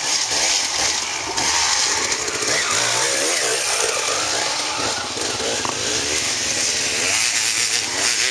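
Dirt bike engines revving, the pitch climbing and dropping repeatedly as the riders pass.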